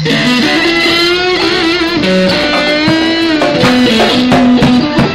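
Live electric guitar playing long, wavering lead notes with vibrato over a band, with sharp percussive hits joining in after about three and a half seconds.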